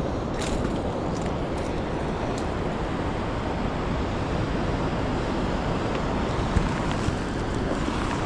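Steady rush of ocean surf with wind buffeting the microphone, with a few faint ticks in the first couple of seconds.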